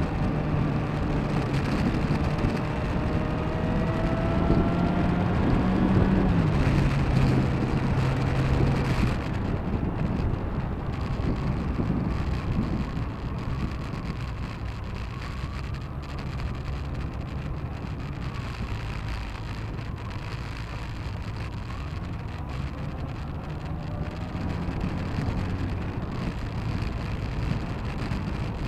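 Engine of a moving vehicle running under way, heard with steady road and wind noise on a vehicle-mounted action camera's microphone. The engine note drops about six seconds in, and the sound gets quieter after about nine seconds.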